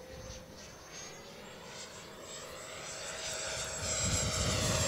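Twelve-blade 70mm electric ducted fan of an FMS F-16 model jet whining under power: a high steady whine with a fainter lower hum beneath it. The pitch rises a little about a second and a half in, and the whine grows louder over the last couple of seconds.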